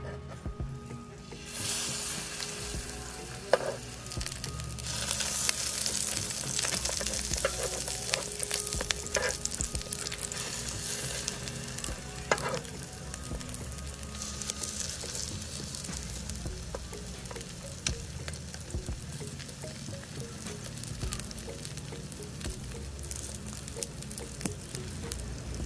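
Eggs in scored-sausage rings sizzling in oil in a nonstick frying pan, the sizzle picking up about a second and a half in. There are a few sharp clicks of a metal spatula and tongs against the pan as the pieces are turned.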